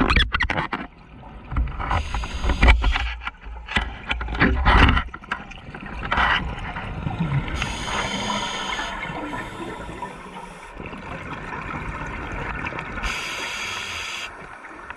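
Scuba diver's regulator breathing underwater. A gush of exhaled bubbles gurgles and crackles for the first few seconds, then quieter, steadier water noise follows, with two short hisses later on.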